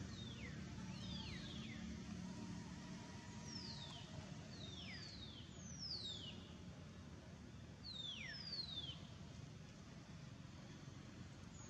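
A bird calling a dozen or so times with thin, high whistles that slide sharply downward, often two at once, over a low steady rumble.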